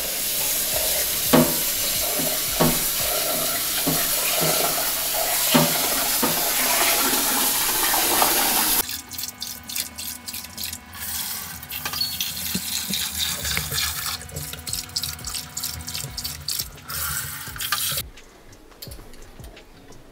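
Kitchen tap running in a steady stream for about nine seconds, then shut off. It is followed by a stretch of quick light clicks and clatter.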